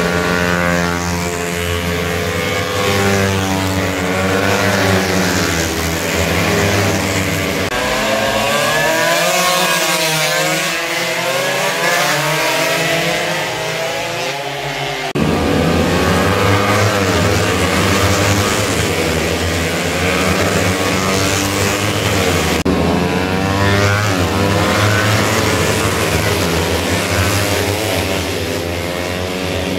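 Several small underbone racing motorcycles running at high revs, their engine notes rising and falling as they brake, shift and accelerate through a corner. The deeper part of the sound thins out for several seconds, then jumps back abruptly about halfway through.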